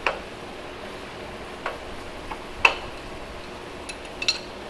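About six sharp metallic clicks and taps, irregularly spaced, from hand tools handled on a steel machine table, over a steady shop background. The loudest tap comes a little past halfway, and two close together near the end ring briefly.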